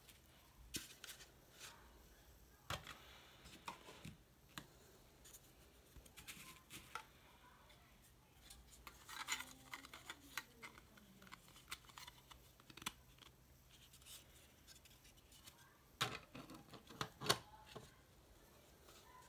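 3D-printed plastic parts being handled and fitted together: scattered light clicks and taps as pieces are picked up and set down, a short sliding scrape partway through, and a cluster of sharper plastic clicks near the end as parts are seated.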